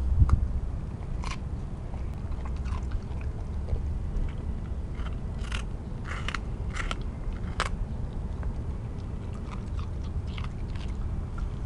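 A corgi puppy chewing and biting a watermelon rind: irregular crisp crunches, thickest a little past halfway, over a steady low rumble.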